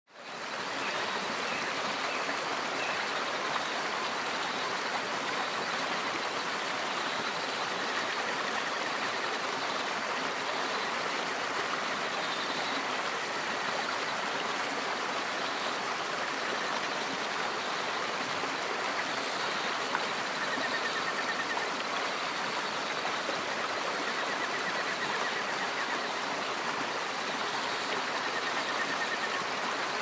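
Mountain creek rushing over rocks in a small cascade: a steady rush of water that fades in over the first second.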